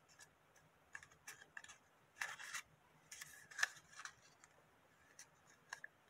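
Coloured paper rolled into a tube rustling and crackling as fingers squeeze and press it, in short scattered crackles with longer rustles about two and three seconds in.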